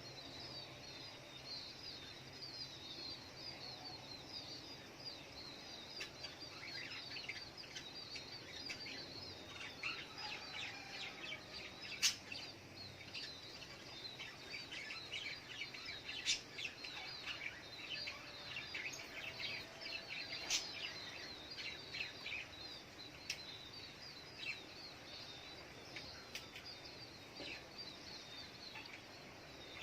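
Little spiderhunter (sogok ontong) calling: a dense stream of short, high chirps, with a few sharper, louder notes scattered through.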